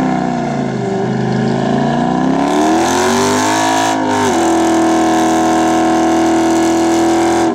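American muscle car doing a burnout, its engine held at high revs with the rear tyres spinning on the pavement. The revs sag about a second in, climb back over the next few seconds, then hold steady at a higher pitch for the last three seconds. The engine note is low and rumbly.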